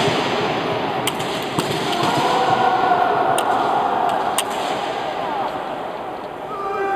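Kendo sparring: bamboo shinai cracking sharply against each other or on armour four times, with a drawn-out kiai shout held for about two seconds in the middle.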